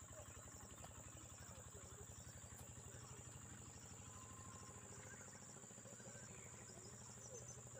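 Near silence, with faint insects chirring in the background: a steady high drone and short chirps repeating about twice a second.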